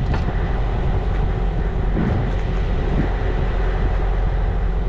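Heavy diesel engine idling steadily with a constant low hum, with a couple of faint knocks about two and three seconds in.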